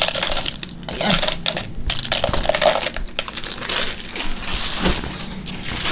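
Chocolate chips rattling into a clear plastic container, with the plastic bag they come from crinkling, a dense run of small clicks over a rustling hiss.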